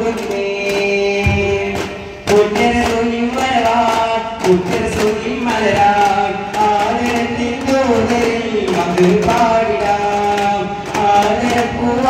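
Daf muttu: a devotional song sung in a chanting style, accompanied by sharp, rhythmic strikes on daf frame drums.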